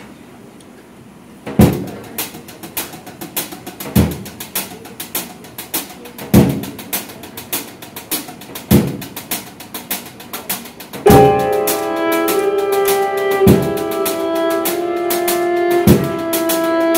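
Live band music: a percussive groove starts about a second and a half in, with a heavy beat roughly every two and a half seconds and lighter hits between. About eleven seconds in, a bowed violin melody with held notes comes in over it.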